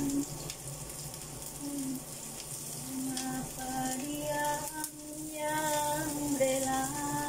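Sliced garlic and shallots sizzling steadily in hot oil in a frying pan, with a woman's voice singing a slow melody in long held notes over it.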